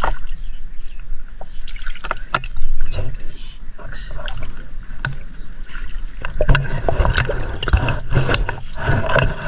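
River water lapping and sloshing around a camera held at the surface, with a low rumble and scattered splashes and clicks as people move through the water.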